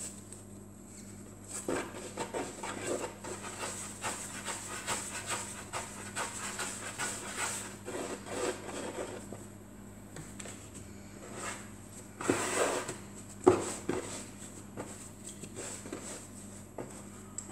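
Hands kneading and rolling pizza dough on a semolina-dusted wooden board: soft, irregular rubbing and patting, with a louder burst about twelve seconds in and a sharp knock just after.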